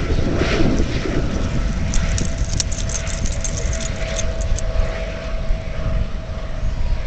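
Helicopter flying past overhead: a steady low engine-and-rotor rumble with a thin steady tone above it, mixed with wind rushing on the microphone. A few light clicks come about two to four seconds in.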